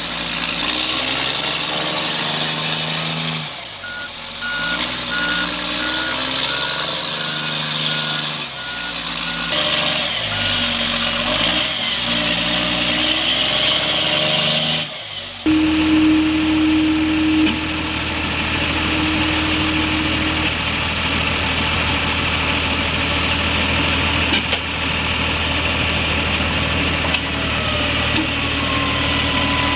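Heavy military armoured trucks' diesel engines running and labouring over rough ground. A reversing beeper sounds in short repeated beeps from about four seconds in for several seconds, and the engine sound settles into a steadier drone about halfway through.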